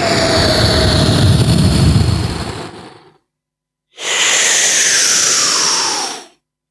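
Beatboxer's mouth-made jet aircraft sound effect: two long, loud rushing blasts with a short break between. The second carries a whistle that falls in pitch.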